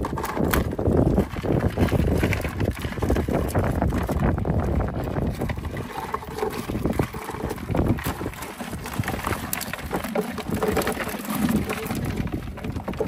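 Wind buffeting the microphone as a low rumble, with scattered short knocks and clatter.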